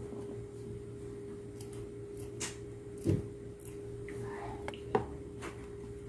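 Kitchen scissors snipping small red chili peppers, a scattered series of sharp snips, with two louder knocks about three and five seconds in over a steady background hum.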